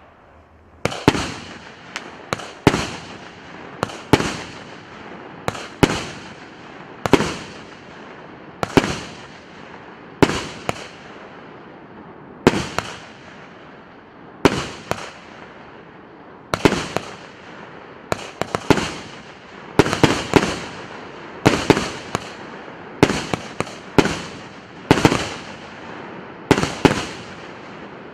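Consumer fireworks cake, a 88-shot battery of 1.2-inch aerial shells, firing in sequence: sharp bangs of shells launching and bursting, about one a second and sometimes two close together, each followed by a fading echo.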